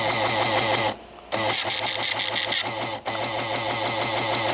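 The printer on a TFT EAS unit printing: a dense, rapid mechanical rattle that stops for a moment about a second in and again very briefly about three seconds in, as it works through the printout of the weekly test.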